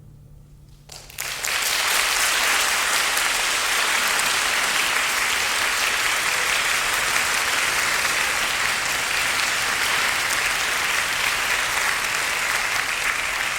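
Audience applauding, breaking out suddenly about a second in as the wind band's last low note dies away, then continuing steadily.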